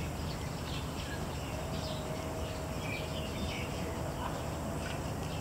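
Outdoor ambience: a steady low rumble with scattered short bird chirps. A faint thin steady tone is held for about two and a half seconds in the middle.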